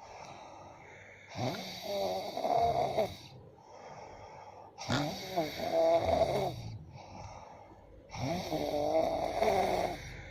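A sleeping person snoring heavily: three long snores about three seconds apart, with quieter breathing between them.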